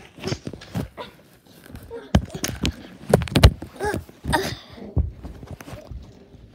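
Handling noise from a phone being moved about against a leather couch: irregular knocks, thumps and rustles, with a few brief bits of a child's voice about halfway through.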